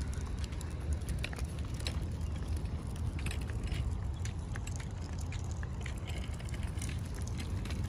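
Wind buffeting a phone microphone outdoors: a steady low rumble, with scattered faint clicks.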